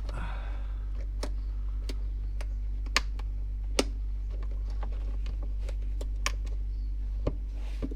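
A steady low hum, with light, irregular clicks and taps over it.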